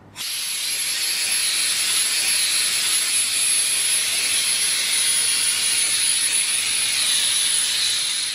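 Steady machine hiss with a thin, high-pitched whine held over it, fading out near the end.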